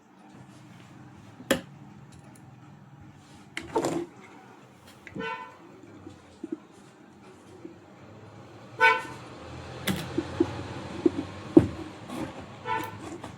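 Sharp clicks and knocks of parts being handled and fitted, with a vehicle horn honking three short times.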